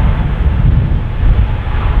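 Strong wind buffeting the camcorder's microphone: a heavy, uneven low rumble with a steady rushing noise above it.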